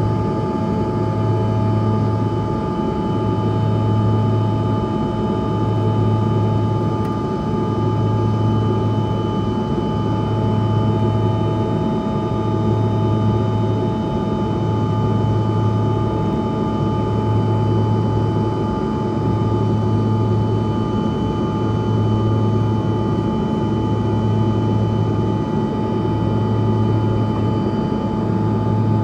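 Bombardier CRJ-200's GE CF34 turbofans heard from inside the cabin: a steady jet engine whine of several high tones over a low drone that swells and fades about every second and a half.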